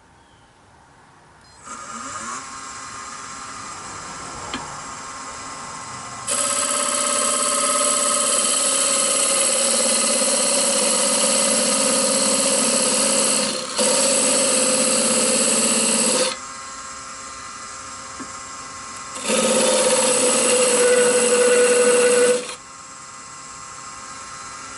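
Nova wood lathe starts up about two seconds in and runs steadily, while a turning tool cuts the spinning wooden spindle in two long passes: one of about ten seconds with a brief break, then one of about three seconds. Between and after the passes only the lathe is heard running.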